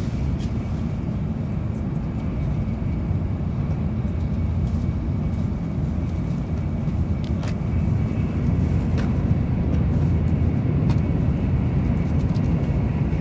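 Interior running noise of a Nozomi Shinkansen train under way: a steady low rumble from the wheels and track with a faint steady high whine and occasional light clicks, growing slightly louder about eight seconds in.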